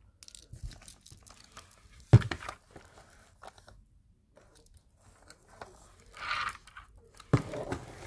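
Plastic handling noise from a vacuum cleaner's floor nozzle, with the motor off: two sharp knocks, about two seconds in and again near the end, with scraping and rustling against a blanket between them.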